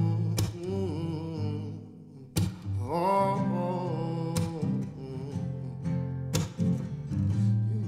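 Acoustic guitar strummed in a steady pattern, with a heavy accented strum about every two seconds. A man's wordless singing glides between notes over it.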